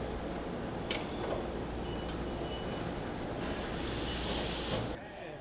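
Engine assembly plant machinery: a steady mechanical rumble and hum, with sharp clicks about one and two seconds in and a high hiss lasting about a second from around three and a half seconds. The rumble drops off near the end.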